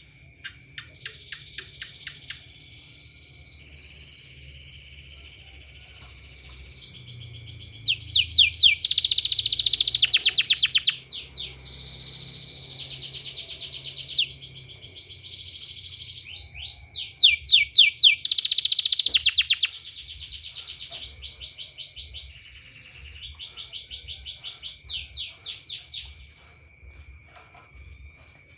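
Domestic canary singing: long rolling phrases of rapid trills and repeated notes, loudest in two bursts about eight and seventeen seconds in. A steady thin high tone runs underneath.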